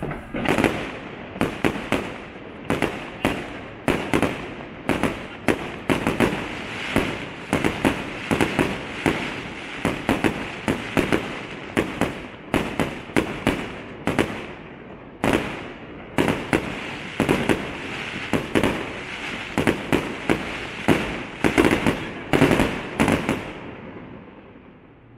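Aerial fireworks display: rapid volleys of sharp bangs, several a second, over a steady hiss, dying away near the end.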